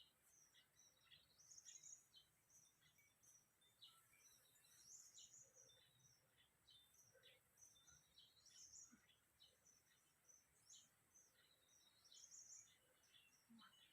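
Faint birdsong: many short, high chirps and trills from several small birds, scattered throughout over a quiet background hiss.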